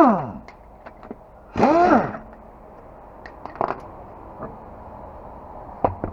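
Power impact wrench spun twice in short bursts, its whine rising and falling in pitch each time, while the wheel is being taken off. A few light clicks and knocks of tools and parts follow.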